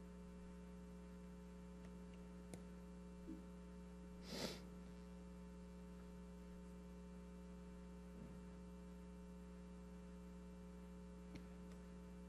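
Near silence over a steady electrical mains hum, with a brief hiss about four seconds in and a few faint clicks.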